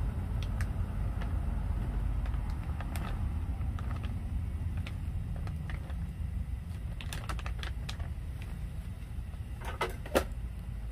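Pork broth at a rolling boil in a pan on a portable butane stove, with scattered popping ticks, the plastic bag crinkling and kimchi slopping in as it is squeezed into the pot, over a steady low rumble. Two sharp clicks near the end are the loudest sounds.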